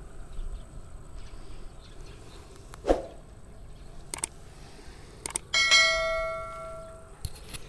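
A subscribe-button animation sound effect: a few sharp mouse clicks, then a bell-like ding that rings out and fades over about a second and a half.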